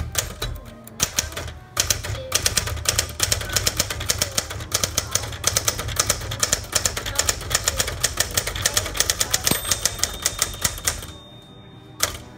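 1965 Smith Corona Galaxie II manual typewriter typed on fast, a rapid run of keystrokes and typebar strikes for about eleven seconds. Near the end the margin bell rings once and its tone hangs on until the typing stops.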